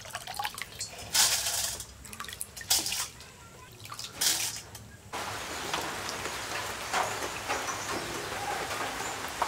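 Water splashing and dripping in a few short pours as washed, soaked rice is lifted out of its water to drain. About halfway through this cuts off abruptly and gives way to a steady hiss with small ticks.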